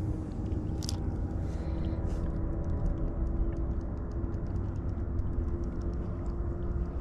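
Wind rumbling on the microphone with a steady faint hum, while a spinning reel is cranked slowly, giving a run of faint, quick ticks.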